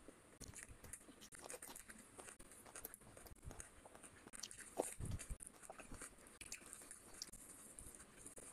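Close-miked eating by hand: chewing and mouth clicks with short crunchy bites, the loudest crunch just before the midpoint as raw onion is bitten, and soft squelches of fingers mixing rice and curry.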